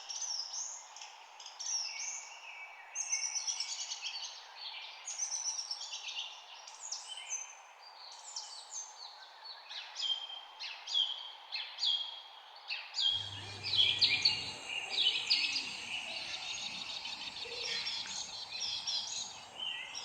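Several birds chirping and singing in quick, short rising and falling notes over a steady background hiss. About 13 seconds in, the background shifts and a brief low hum comes in under the birdsong.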